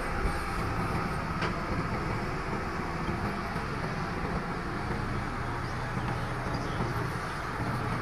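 LiuGong crawler bulldozer's diesel engine running steadily under load, with the tracks working through sand.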